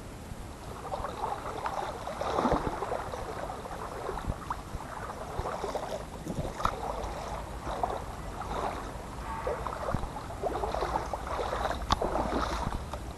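Water of a shallow stream splashing and trickling in irregular swells, with a few sharp clicks.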